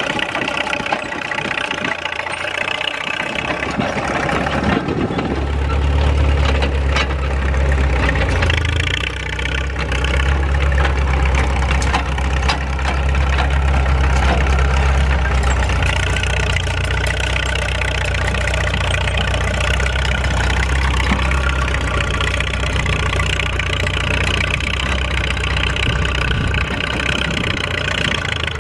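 1941 Caterpillar D2 crawler tractor's four-cylinder D3400 diesel engine running steadily under load as it pulls a two-bottom plow. About five seconds in the sound grows louder and deeper, with a strong low rumble that stays to the end.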